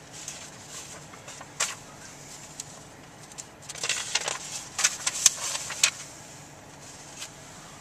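Inside a vehicle's cab at low speed: a steady low engine hum with a few short rattling clatters, the loudest bunch about four to six seconds in.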